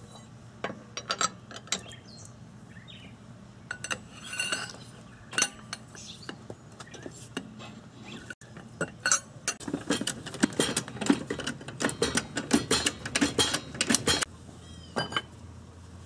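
Metallic clicks and clinks of hand tools working a car wheel's lug nuts. A dense run of rapid clicks lasts about four seconds in the second half.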